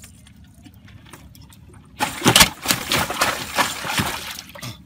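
A large fish caught in a cast net thrashing in the water in the bottom of a boat, splashing. The splashing starts suddenly about two seconds in as a rapid run of loud splashes and slaps, and stops shortly before the end.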